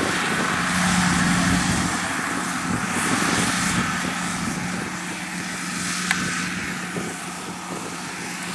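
Kubota DC-105X combine harvester running steadily as it cuts rice, a constant engine hum that grows a little fainter toward the end. A single sharp click about six seconds in.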